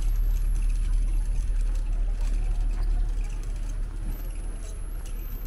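Street market ambience: a steady low rumble under a background of noise, with a thin high-pitched whine throughout, growing a little quieter about four seconds in.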